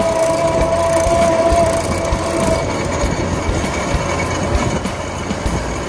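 Street noise heard from a moving pedicab in city traffic: a steady rumble with small knocks, plus a steady high squeal that fades out about two and a half seconds in.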